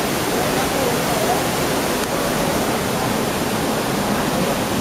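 Steady rush of falling water: water showering down from a canyon's rock overhang and cascading as whitewater into the river.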